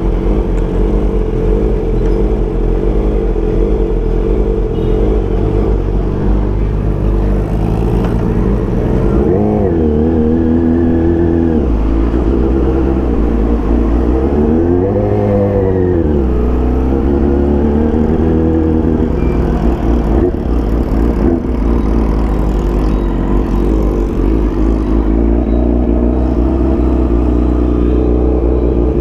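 Kawasaki ZX-10R inline-four engine running at a steady pitch, with the revs swelling up and dropping back three times midway and beginning to climb again at the end.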